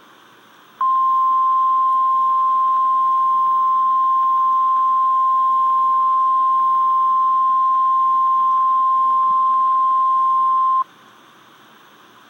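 NOAA Weather Radio warning alarm tone: a single steady 1050 Hz tone held for about ten seconds over radio hiss, starting about a second in and cutting off suddenly. It is the signal that switches on tone-alert weather radio receivers, sent here as part of the required weekly test.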